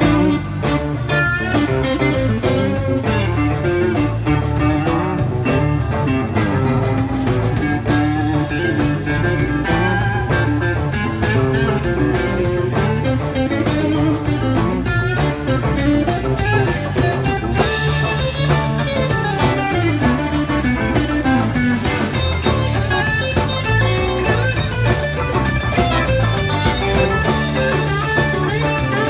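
Live rock band playing: electric guitars over bass and drum kit, with steady, continuous playing.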